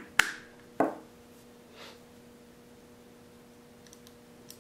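A sharp click just after the start, then a duller knock about a second in, as a wooden grip panel is pressed onto a steel 1911 pistol frame by hand; a couple of faint ticks near the end, over a faint steady hum.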